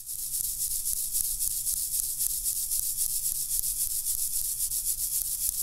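Flour and baking powder being sifted through a fine-mesh metal sieve: a steady high, scratchy hiss of powder rubbing through the mesh, pulsing quickly with each shake of the sieve.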